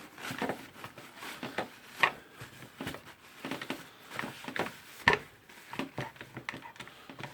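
Parts of a rotary hammer drill's tool holder being handled and taken apart: scattered clicks and small knocks of metal parts, with two louder knocks about two and five seconds in.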